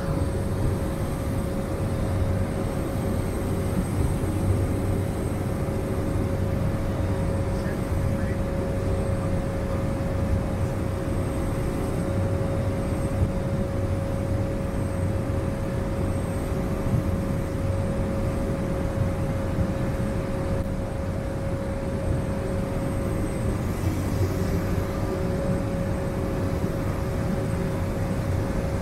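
Steady cabin noise of a Cessna Caravan's single turboprop engine and propeller on final approach, heard from inside the cabin: a constant low drone with a steady hum held above it.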